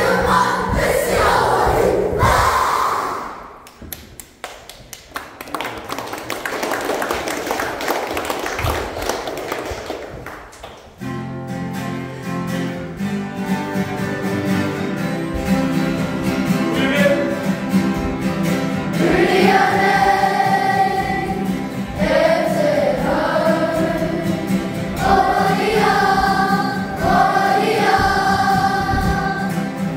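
Children's kapa haka group singing a Māori waiata in unison to acoustic guitar accompaniment. The song stops about three seconds in and a few seconds of even noise follow. Guitar chords start a new song about eleven seconds in, and the many young voices join about eight seconds later.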